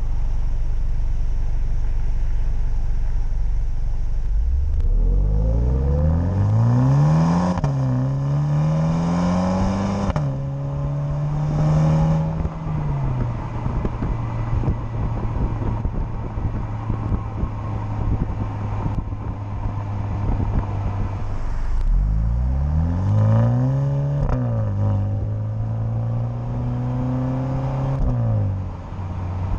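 2020 MINI JCW Countryman's turbocharged four-cylinder and exhaust accelerating through the gears in sport mode with manual shifts, kept under 4,500 rpm. The engine note climbs from about four seconds in, drops at two upshifts and settles into a steady cruise; a second pull starts around twenty-one seconds in, rises, drops at an upshift and eases off near the end.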